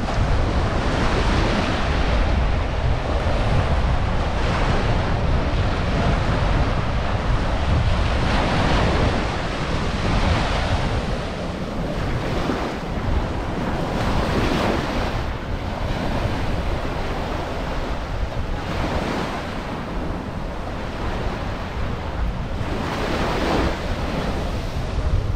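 Ocean surf breaking on a sandy beach, swelling and washing in every few seconds, with wind buffeting the microphone, heavier in the first half.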